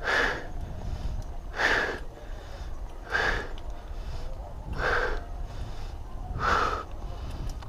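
A cyclist breathing hard while pedalling, a loud exhale about every one and a half seconds, over a steady low rumble.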